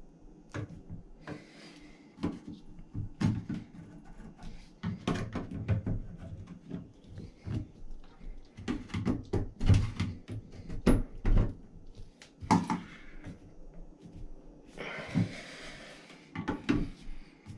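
Irregular metallic clicks, taps and scrapes of hand tools working at the seized brass bonnet nut of a Delta shower valve, with a second-long rasping scrape about fifteen seconds in. The nut is stuck and will not come off.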